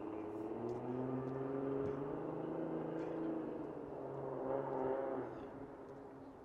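A passing engine's low, steady hum, swelling twice and fading out about five seconds in.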